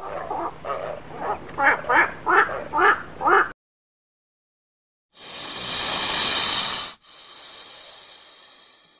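A run of short animal calls, about two a second, then after a brief silence a snake hissing: one long loud hiss, then a second, quieter hiss that fades out.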